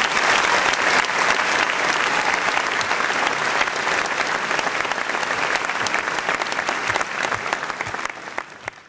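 Audience applauding, a dense crackle of many hands clapping that thins out and dies away in the last second or two.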